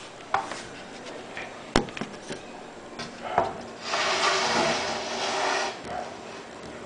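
Handling noise on a wooden tabletop: a few sharp clicks and knocks, the loudest about two seconds in, then about two seconds of scraping as something is slid across the wood.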